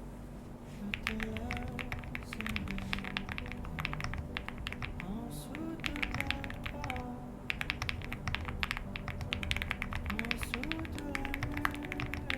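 Fast typing on a Weikav Alice Record custom mechanical keyboard: dense runs of key clicks, described as creamy and marbly, with brief pauses between bursts. Background music plays underneath.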